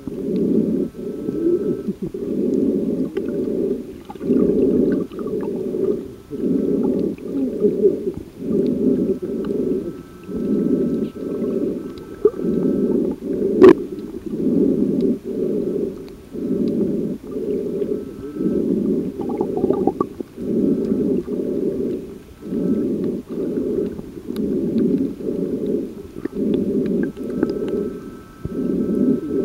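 Muffled, rhythmic surging noise picked up underwater, pulsing about once a second. One sharp knock comes about halfway through.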